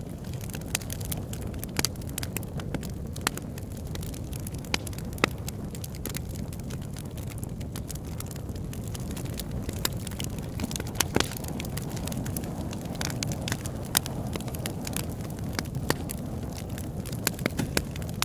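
Wood fire burning: a steady low rush of flames with irregular sharp pops and crackles of burning wood.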